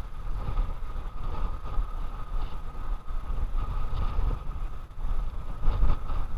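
Wind buffeting the microphone: a gusty low rumble that swells and drops, with a thin steady high hum underneath.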